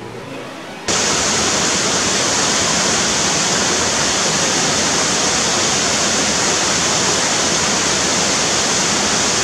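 A loud, even rushing noise like falling water cuts in abruptly about a second in and holds steady, with a strong high hiss.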